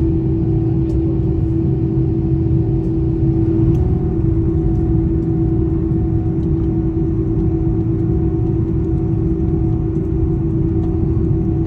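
Jet airliner cabin noise on the ground, heard from a window seat by the wing: the engines make a loud, steady drone over a low rumble as the plane taxis.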